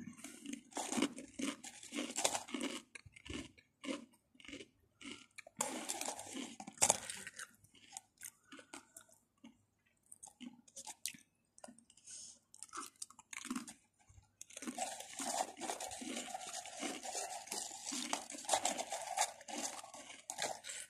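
Mamee Ghost Chili Pepper Black Crisps being chewed close to the microphone: irregular crunches with short gaps. About two-thirds of the way in the crunching becomes denser and continuous.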